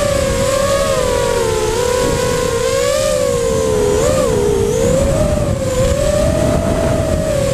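Electric motors and propellers of a 250-size FPV racing quadcopter whining in flight, the pitch wavering up and down with the throttle.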